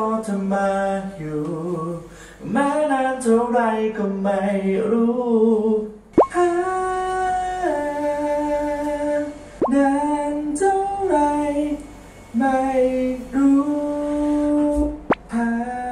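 A cappella singing from a multi-tracked vocal arrangement. For about six seconds a sung line moves and bends in pitch, then the voices hold long notes that step to new pitches every second or two.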